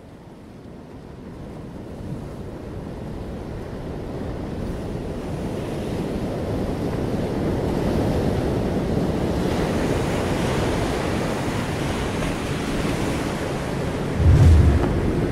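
Ocean surf washing over coastal rocks, fading in from quiet and growing louder over the first several seconds, then holding steady. Near the end a short deep boom is the loudest sound.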